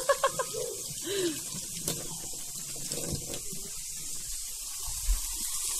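Kitchen tap running over hands being rinsed at a stainless steel sink, a steady hiss of water.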